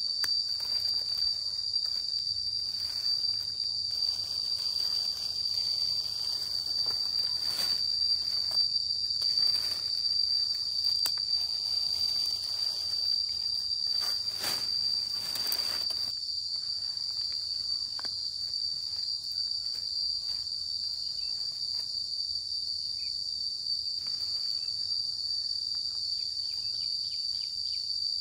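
Crickets chirring in one steady, unbroken high-pitched note, with a few faint clicks in the middle.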